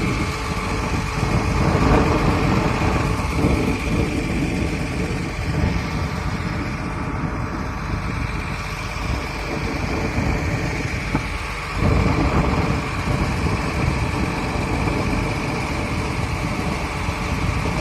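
John Deere 8335RT tracked tractor running steadily, its diesel engine and machinery noise loud and even, with a brief dip about two-thirds of the way through.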